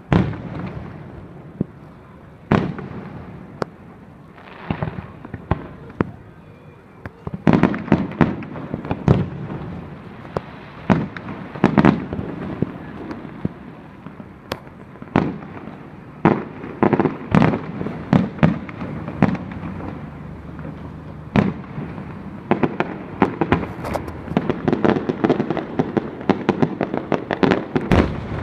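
Aerial fireworks bursting, a few scattered bangs at first, then a dense run of rapid booms and crackles from about seven seconds in.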